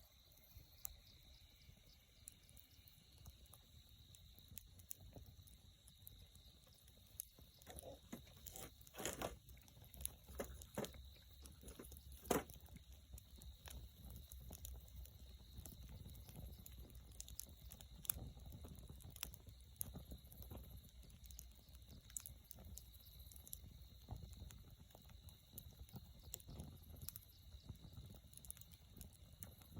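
Wood campfire crackling, with irregular small pops and a cluster of louder snaps about ten seconds in.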